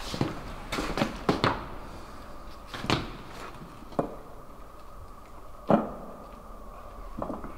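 Irregular knocks and clicks from handling and work, about a dozen spread unevenly, the loudest about three seconds and about five and a half seconds in, over a low steady hum.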